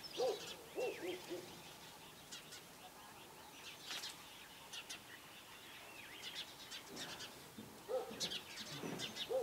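Small birds chirping faintly outdoors, with short, high calls scattered through. A few lower calls or distant voices come just after the start and again near the end.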